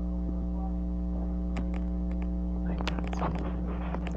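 Steady electrical mains hum with a ladder of overtones. Small clicks and taps come in scattered from about halfway through.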